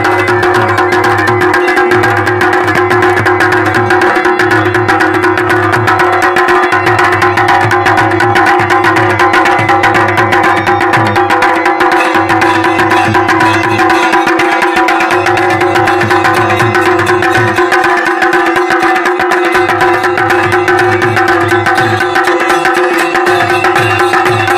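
Kumaoni Chhaliya band music: masakbeen bagpipes playing over steady held drone tones, with dhol and damau drums beating a fast, dense rhythm.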